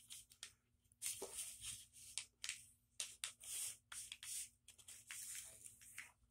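A sheet of newsprint being folded in half and its crease pressed flat by hand: a string of short, hissy paper rustles and swishes as the paper slides under the palms.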